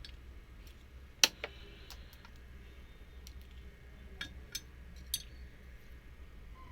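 Scattered sharp clicks and taps of screws and parts being handled while the screws are fitted back into the HP LaserJet M1005 printer's housing: one loud click about a second in, then a few lighter ones near the end.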